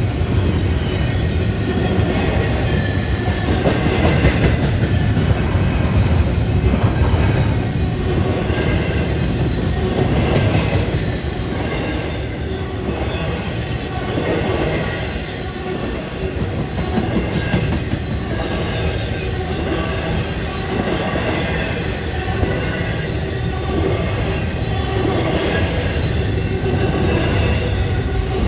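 Train rolling past with a steady low rumble, repeated clacks of its wheels over rail joints, and occasional high-pitched wheel squeal.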